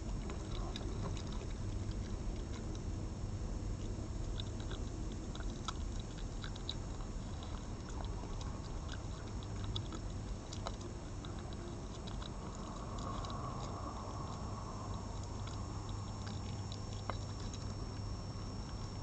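Red fox eating raw minced meat from a plate: many small wet clicks and chewing ticks, scattered irregularly, over a steady low hum.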